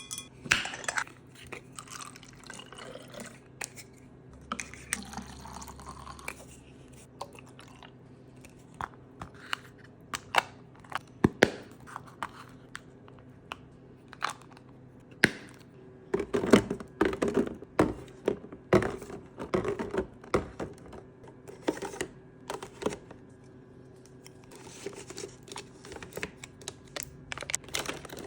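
Items being set one by one into a mini fridge and moved about on its shelves: scattered light clicks, clinks and knocks, busiest about two thirds of the way through.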